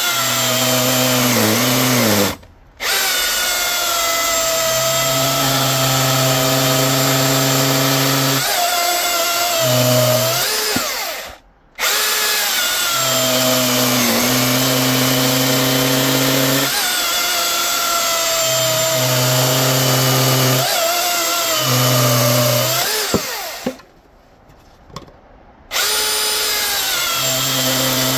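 Milwaukee M18 dual-battery electric chainsaw with a Husqvarna C83 3/8 full-chisel chain cutting hardwood at full speed, its pitch dipping under load now and then. It stops three times, most briefly after about two seconds and longest near the end. The chain chatters in the cut even though it has just been tightened.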